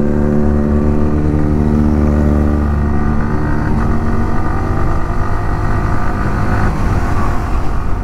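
Yamaha R15 V4's single-cylinder engine running under way, at a steady pitch for about three seconds and then changing pitch and note as the speed varies.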